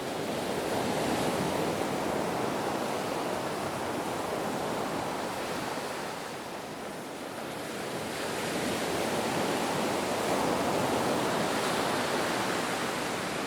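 Ocean surf: a continuous wash of breaking waves that eases off about halfway through and swells again.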